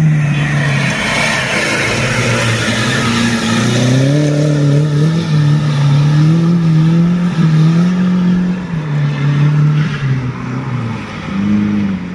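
Off-road 4x4's engine revving up and down as it is driven over the dirt course, its note rising and falling every second or two.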